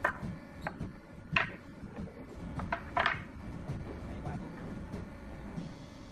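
Irregular sharp knocks and taps of woodworking, about six in all, three of them louder, over a steady low rumble.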